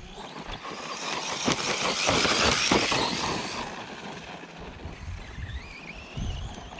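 Arrma Outcast 4S RC truck driving up a dirt hill: tyres churning and throwing dirt with the electric motor under load, loudest about two seconds in. Near the end the motor's whine rises in pitch.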